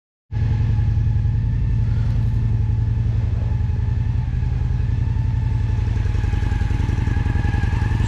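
Honda Shadow ACE 750's V-twin engine idling steadily with an even low pulse. It starts a fraction of a second in.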